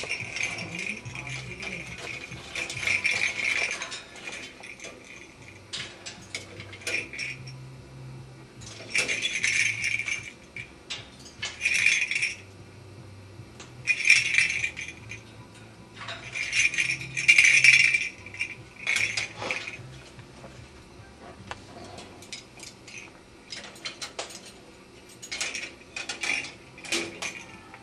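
A parrot's toy rattling and clinking in repeated bursts as the bird tosses and shakes it, with short pauses between bursts.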